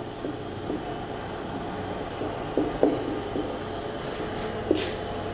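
Marker writing on a whiteboard: a few faint ticks and one short scratch of the pen tip, over a steady low hum.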